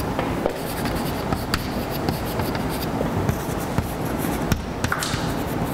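Chalk writing on a blackboard: irregular short taps and scratches over a steady background haze.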